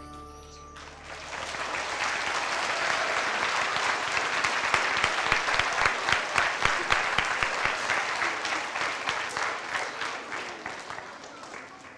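Musical accompaniment ends on a held chord about a second in, then an audience applauds, swelling, holding for several seconds and dying away near the end.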